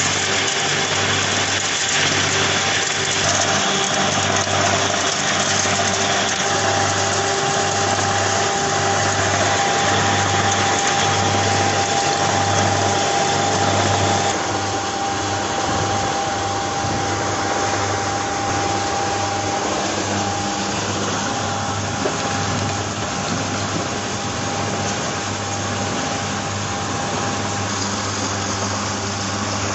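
Fish-feed mill machinery running steadily: a low electric-motor hum under a loud, even rushing noise, with a faint steady whine. The sound drops a little about halfway through.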